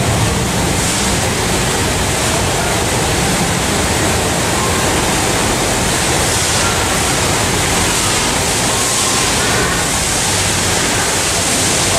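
Class 444 Desiro electric multiple unit standing at the platform, its ventilation and auxiliary equipment running as a steady, loud rushing hiss with a low hum underneath.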